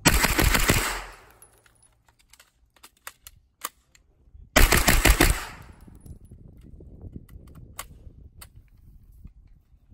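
Two rapid strings of gunfire from a compact carbine, each about a second long and about four and a half seconds apart, with a few sharp clicks in between.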